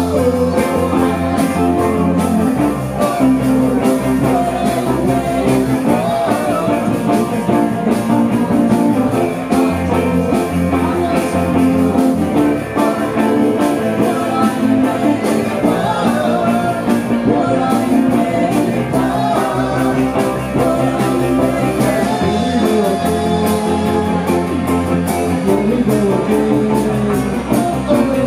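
Live rock band playing a pop-rock song, with a woman singing lead over electric bass, guitar, keyboards and a drum kit.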